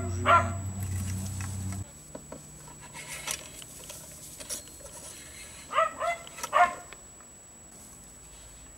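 A dog barks a few times in quick succession about six seconds in. Before that, a low steady hum stops about two seconds in, and there are faint clicks and scrapes from a brush being worked through the shotgun barrel.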